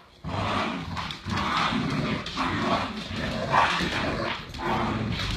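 Dogs growling and barking in play during a tug-of-war over a rope toy, in repeated short bursts.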